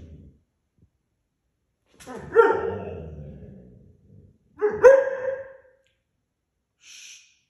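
A German shorthaired pointer puppy barking loudly twice, about two and a half seconds apart, the first bark trailing off slowly.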